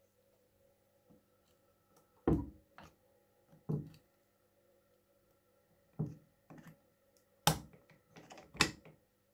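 Screwdriver prying at the metal gear-housing cover of an old hand-cranked breast drill, giving about six sharp metal clicks and knocks as the cover is worked loose.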